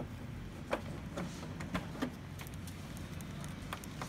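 A steady low hum with about six light, sharp clicks scattered through it; the last click comes as a finger presses a button on the laser printer's control panel.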